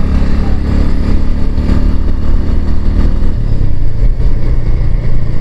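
A vehicle's engine running under a loud low rumble, its engine note shifting about three seconds in.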